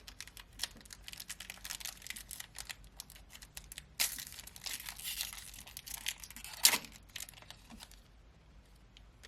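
A trading-card pack wrapper being torn open and crinkled by hand: a run of crackles and rustles, thickest in the middle, with one sharp loud crackle about two-thirds of the way in.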